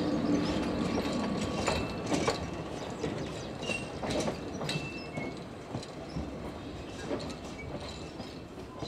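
A narrow-gauge train's wheels clicking and knocking irregularly over the rail joints, fading as the train moves away.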